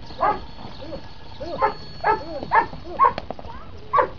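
A dog barking repeatedly: about six short barks at uneven intervals.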